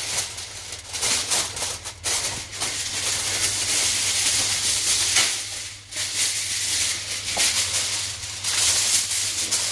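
Aluminium foil crinkling and rustling as a sheet is spread and pressed over a cooking pot, in several long bouts with brief pauses between them.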